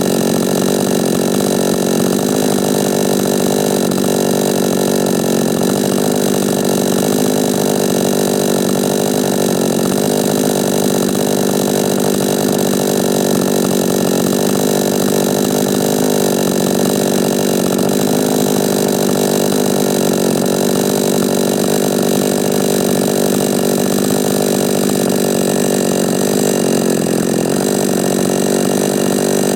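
Chinese 45cc two-stroke chainsaw running steadily at an even speed on its first run after being ported and fitted with new piston rings.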